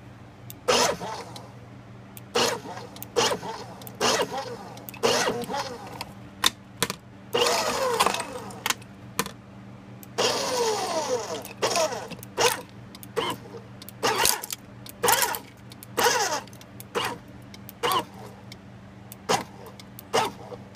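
Converted paper shredder run in short pulses, its cutters chewing small failed 3D-printed plastic parts: about one short burst of motor and cracking plastic a second, over a steady low hum. Two longer runs near the middle fall in pitch. Pulsing like this keeps the small parts from jamming the cutters.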